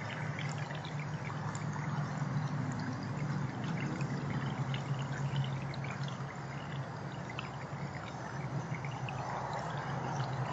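Water pouring and trickling steadily.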